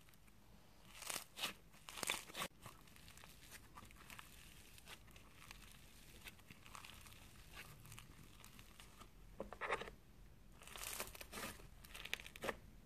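Foam-bead slime (floam) being stretched and squeezed by hand, crackling and crunching in short clusters of pops, with quieter squishing in between.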